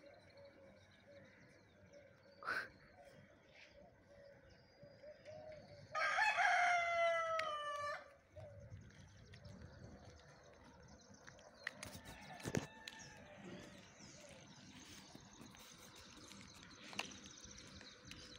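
A rooster crowing once, a single call of about two seconds roughly six seconds in, its pitch dropping at the end.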